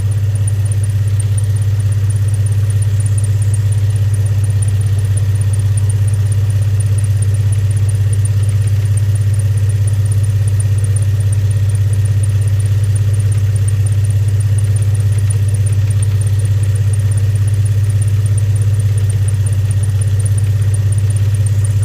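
2003 Infiniti G35's 3.5 L V6 idling steadily, with a steady high ticking over the engine note. The engine seems to be misfiring at idle, and the scan tool has stored a random misfire code.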